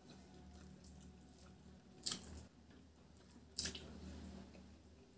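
Quiet wet eating sounds of rice and greens eaten by hand, fingers working the food on a plate, with two sharp moist smacks about two and three and a half seconds in.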